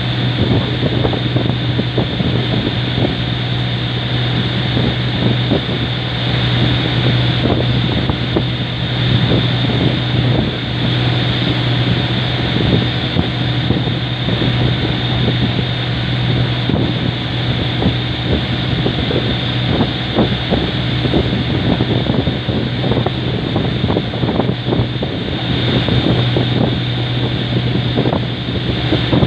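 Boat engine running steadily with a constant low drone, with wind buffeting the microphone.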